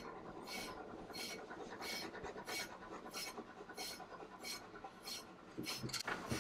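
Slicker brush drawn in even strokes through a Bernese mountain dog's dry double coat, a soft rasp about every two-thirds of a second, working out the loose undercoat.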